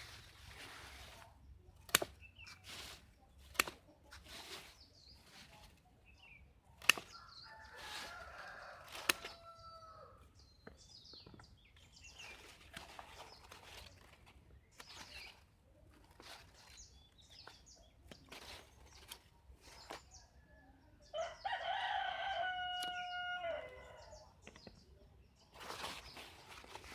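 A rooster crowing: a shorter falling call about a third of the way in, and one long crow of about two and a half seconds near the end. A few sharp clicks come in the first seven seconds.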